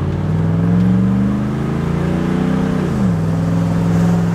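Old Chevrolet pickup's engine heard from inside the cab, accelerating with its pitch rising steadily, then dropping sharply about three seconds in at a gear change and settling to a steady pull.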